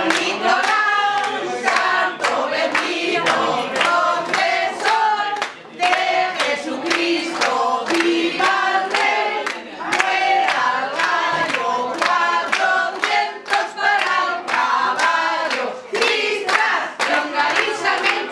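A group of women singing a song together at a table, clapping their hands in time throughout.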